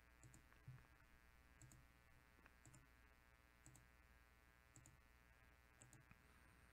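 Faint computer mouse clicks, about one a second, each a quick double tick of press and release, as a button is clicked over and over.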